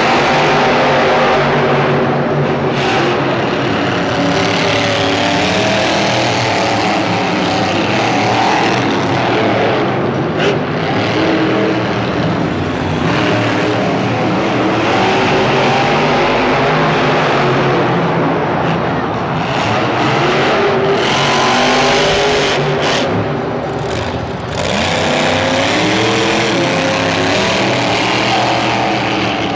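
Monster truck supercharged V8 engines revving hard, their pitch rising and falling again and again under throttle.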